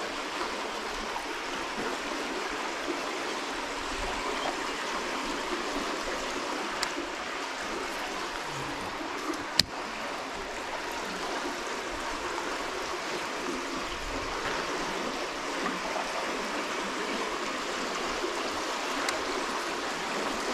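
Steady rush of swift river current flowing past bridge piers, with a single sharp click about halfway through.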